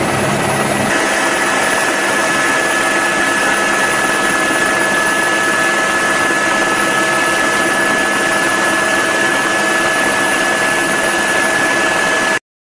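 Helicopter cabin noise: a steady loud rush with a high, even turbine whine. The low rumble drops away about a second in, and the sound cuts off abruptly near the end.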